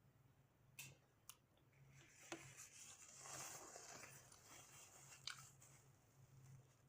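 Faint chewing and mouth sounds of someone eating a sloppy joe, with a few small clicks and a low steady hum underneath.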